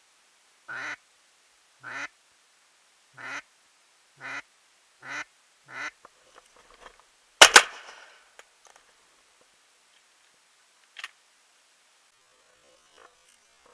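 A HunterScream DRAKON duck call blown in a run of six short quacks, about one a second and quickening toward the end, then a single loud shotgun shot about seven and a half seconds in, followed by a faint click.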